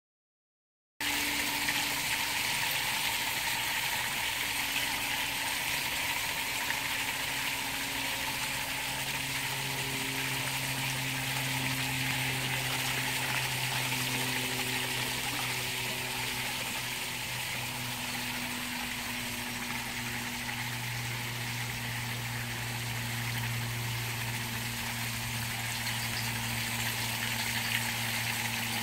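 Water streaming down a pure copper rain chain of flared cup links, splashing steadily through the cups. It starts about a second in, and a low hum underneath shifts in pitch now and then.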